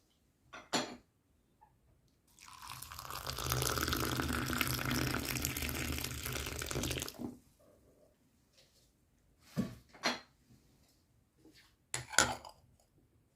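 Water poured steadily for about five seconds, with a few short clicks and knocks of kitchenware before and after.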